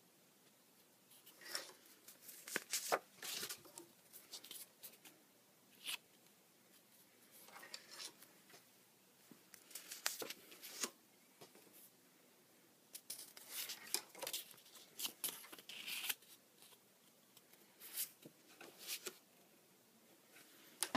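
Paper index cards rustling and crinkling in short, scattered bursts as they are handled and swapped, with near silence between.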